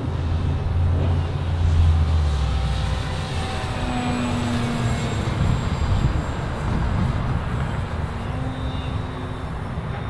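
Electric radio-controlled P-51 Mustang model flying overhead, its motor and propeller giving a thin whine that shifts in pitch about halfway through. Wind buffets the microphone with a low rumble, heaviest in the first few seconds.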